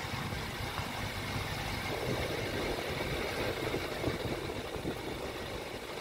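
Wind buffeting the microphone in open country: a steady, uneven rumble with no voices.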